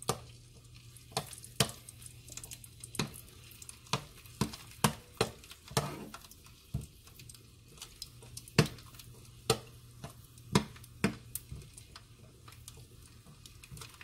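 Garlic cloves frying in hot oil in a nonstick frying pan, crackling with irregular sharp pops, while a metal slotted spoon stirs them.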